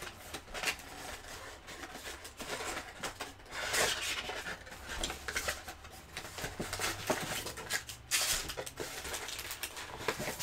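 A cardboard box of trading-card packs being opened by hand: flaps bent and pulled, with scattered scrapes, clicks and rustles, and two louder rustles about four and eight seconds in.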